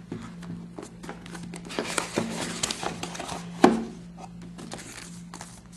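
Cardboard phone box being opened by hand and its paper inserts and CD sleeve handled: scattered rustling and light taps, with one sharper knock about two thirds of the way in, over a low steady hum.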